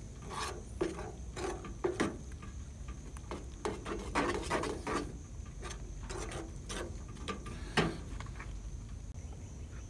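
Metal spoon stirring thick grits in a small metal camp pot, scraping and clicking against the pot's sides and bottom in irregular strokes.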